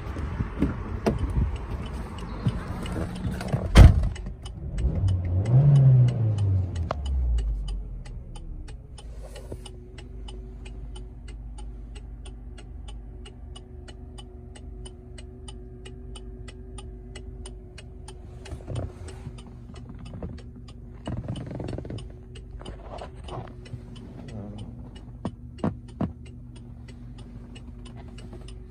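An MG car's door shuts with a loud thump about four seconds in, then the engine starts with a brief rev that rises and falls and settles into a steady idle. Steady ticking of the hazard-light flasher runs throughout.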